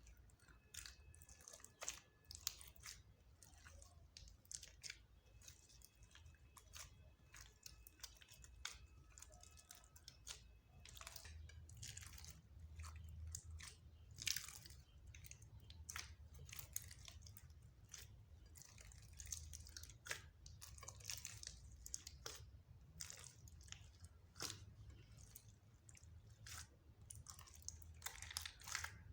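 Slime being pressed, folded and squeezed by hand, giving faint, irregular wet clicks and crackles as small air pockets pop.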